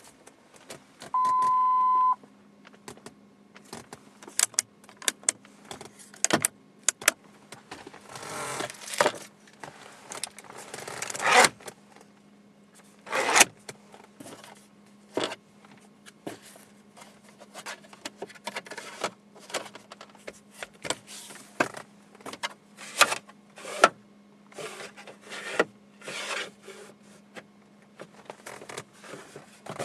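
A single steady beep lasting about a second, then a long run of irregular clicks, knocks and short rustling bursts over a faint steady hum, like hands handling things in and around a car.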